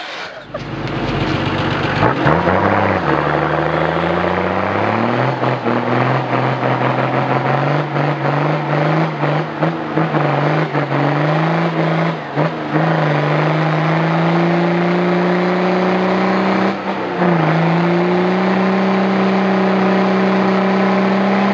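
Off-road 4x4's engine revving hard under load as its wheel is driven through a deep mud rut. It climbs in pitch over the first few seconds, then holds at high revs, slowly rising, with brief dips about twelve and seventeen seconds in, and with scattered short knocks throughout.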